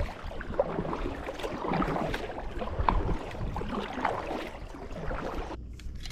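Water splashing and lapping around a plastic sit-on-top kayak, in uneven swells with small knocks, cutting off suddenly near the end.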